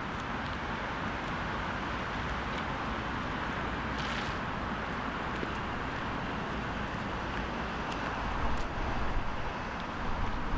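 Steady outdoor background noise, with low rumbling buffets of wind on the microphone near the end.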